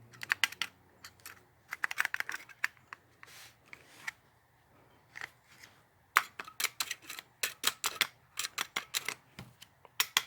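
Screwdriver tip scraping the burnt, blackened contact points of a dryer timer: quick scratching strokes in short bursts, then a fast steady run of strokes, about five a second, from about six seconds in. The blackened contacts are the cause of the no-heat fault, since they no longer make contact.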